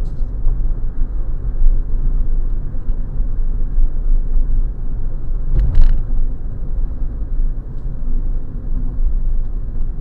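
Car on the move: a steady low rumble of engine and road noise, with a brief sharp noise about six seconds in.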